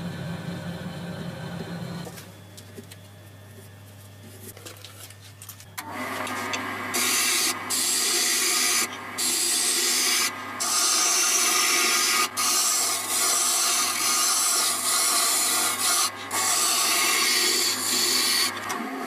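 An electric abrasive tool, sanding or grinding, running with a steady hum; from about six seconds in a workpiece is pressed against it in long rasping passes, lifted off briefly several times, until the sound stops near the end.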